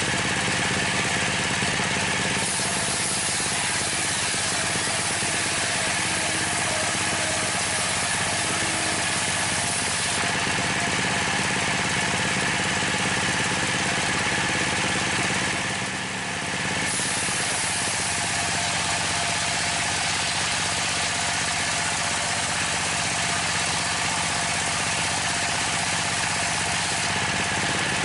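Dompeng (Dongfeng) single-cylinder diesel engine running steadily under load, driving a homemade table circular saw through large timber planks. The saw's cutting noise brightens the sound in two long stretches, with a short lull between them about halfway through.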